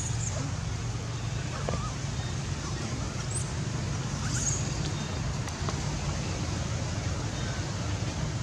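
Steady low outdoor rumble, with a few faint, short high squeaks in the first half.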